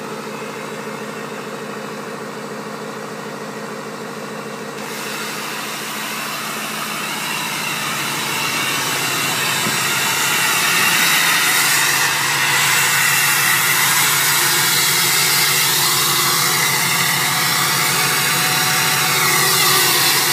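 LBZ Duramax 6.6-litre V8 turbo-diesel idling steadily in −4 °F cold after a cold start. From about five seconds in, heard ever nearer the exhaust tip, the exhaust rush grows louder and hissier, then holds steady.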